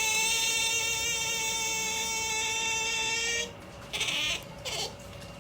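Pet otter making a long, drawn-out whining call held on one slightly falling pitch, then two short squeaks less than a second apart. It is the pampered, drowsy noise she makes when she is about to sleep.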